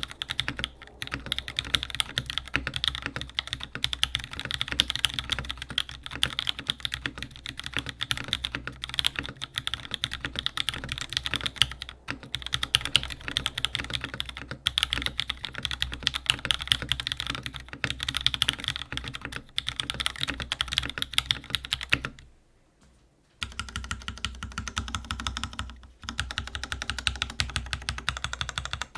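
Continuous fast typing on a custom mechanical keyboard, a Smith and Rune Magnus175 with a brass mid, fitted with JWICK Black Nylon linear switches, Cherry clip-in stabilisers and GMK keycaps on an aluminium plate. The rapid keystrokes stop briefly about two-thirds of the way through, then resume.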